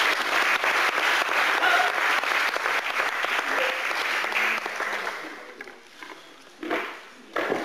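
Spectators applauding in a large hall, the clapping fading out about five to six seconds in.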